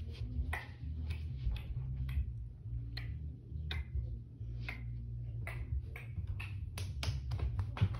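Cat eating dry treats right beside the phone's microphone: irregular crisp crunching clicks, about one or two a second, over a steady low rumble.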